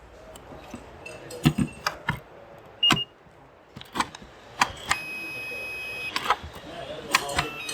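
Makita battery charger being handled: sharp plastic clicks and knocks, as of a battery being slid on and off. The charger gives a short beep about three seconds in, then a steady, single-pitched beep lasting about a second around five seconds in.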